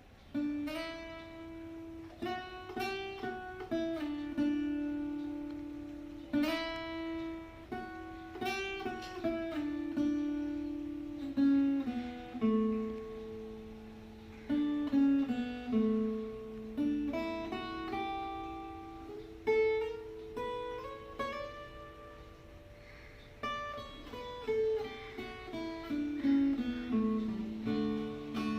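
Acoustic guitar playing a slow melody of single plucked notes, each one ringing out and fading before the next.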